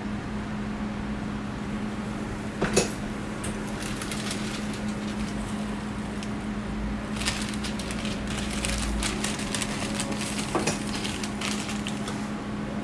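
Paper waffle sleeve and plastic glove crinkling as a folded cream waffle is wrapped by hand, a run of quick crackles in the second half, over a steady low hum. A single knock comes about three seconds in.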